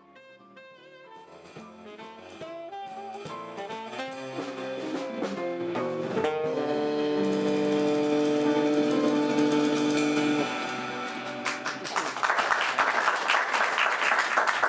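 Small jazz band with saxophone finishing a tune, fading in at the start, with a rising run into a long held final chord. Audience applause breaks out about twelve seconds in.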